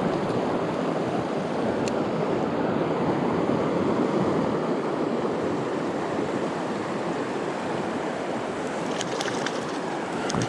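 Mountain river water rushing steadily, with a few faint ticks about two seconds in and near the end.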